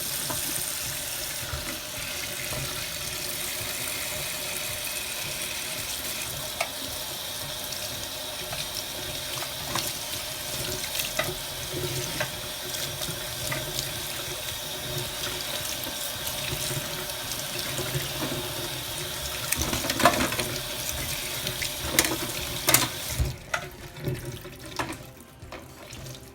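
Tap water running steadily into a sink as conditioner is rinsed out of a doll's hair. Near the end come a few knocks and the water shuts off.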